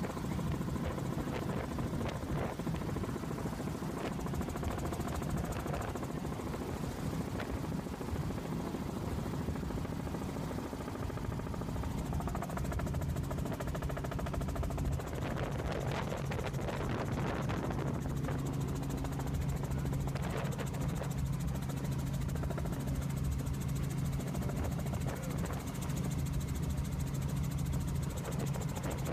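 Helicopter in flight, heard from inside the cabin: a steady engine-and-rotor noise with a constant low hum.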